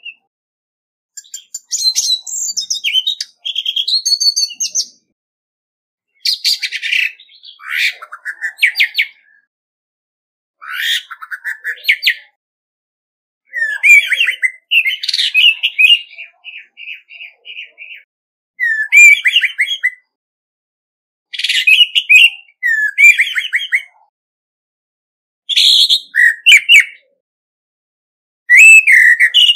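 Male orange-headed thrush singing its challenge song: about eight rich, fast, varied warbled phrases, each one to four seconds long, separated by short silent pauses, with no background noise.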